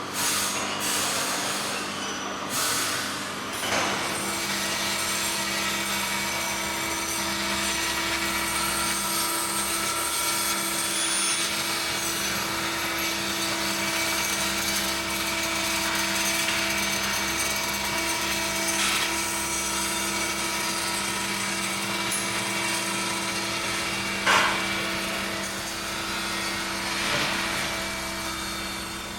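Construction-site machinery running with a steady hum, with a few knocks in the first seconds and one sharp bang near the end.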